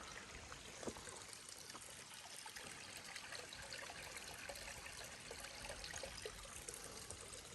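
Small creek trickling and flowing, a faint steady water sound.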